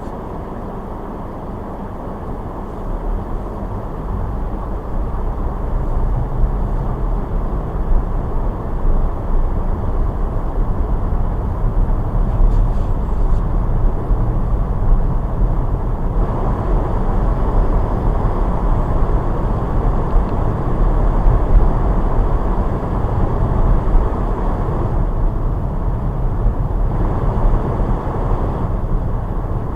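Car driving on snowy roads: steady tyre and road noise with a low rumble, growing louder over the first several seconds and then holding steady.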